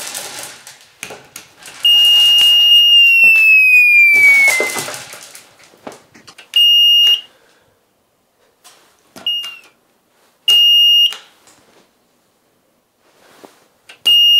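Haas CNC control panel beeping as its power button is pressed: one long electronic beep that slides down in pitch, then four short beeps a few seconds apart, with clicks of the panel buttons between. The machine is failing to power up.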